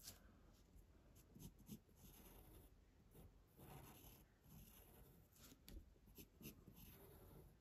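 Pencil drawing on paper: a faint series of short scratching strokes with brief pauses between them, as curved lines are drawn.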